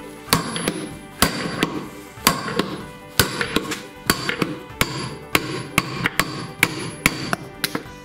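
Hammer blows on a steel drift, knocking a washing-machine drum bearing out of its hub in the plastic tub half. About a dozen sharp metallic strikes come at an uneven pace, some in quick pairs, each ringing briefly.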